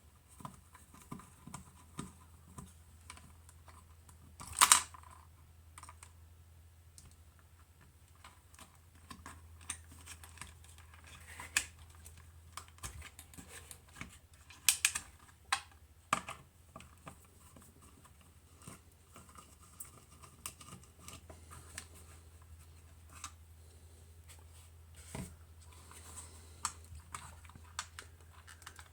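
Scattered small clicks, taps and rattles of hands and tools working inside an opened soldering station while a connector is removed, with a sharper clatter about 4.5 s in and again around 15 s in. A steady low hum runs underneath.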